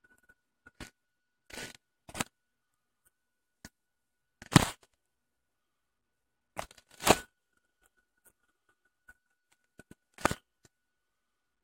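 Scattered knocks and rubbing of a handheld phone being handled, with three louder ones about four and a half, seven and ten seconds in and near silence between them. A faint steady high whine runs underneath.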